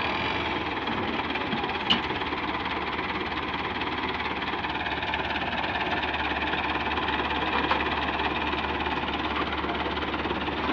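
Tractor engine idling steadily close by, with a single sharp click about two seconds in.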